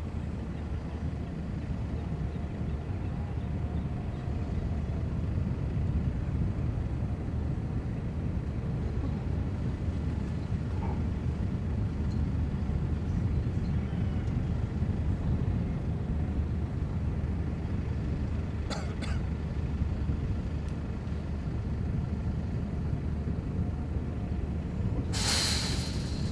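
Steady low outdoor rumble, with a short loud rush of noise near the end.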